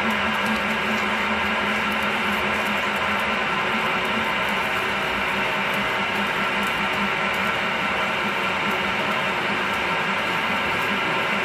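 Milling machine geared down to 200 RPM, its spindle steadily turning a 40 mm drill bit that is cutting a large hole under manual quill feed.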